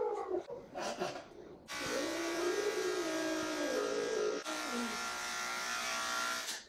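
Electric pet clippers buzzing steadily as they shave matted fur off a longhaired cat, switching on about a second and a half in and cutting off near the end. Over the buzz the cat lets out a long, low yowl.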